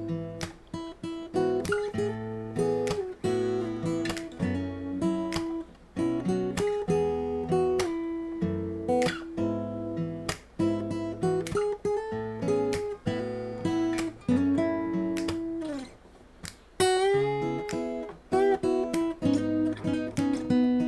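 Solo Shelter Celtic 100 dreadnought acoustic-electric guitar playing an instrumental melody over picked and strummed chords. There is a short gap about sixteen seconds in.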